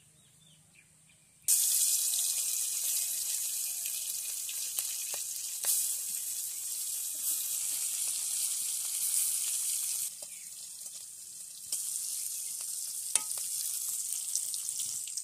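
Hot oil in a black iron wok sizzling, starting suddenly about a second and a half in as pieces of food go into it, then frying steadily. It eases for a moment about ten seconds in, then picks up again.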